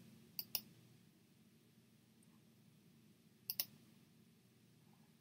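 Two pairs of quick, sharp clicks, the first about half a second in and the second about three seconds later, over quiet room hum.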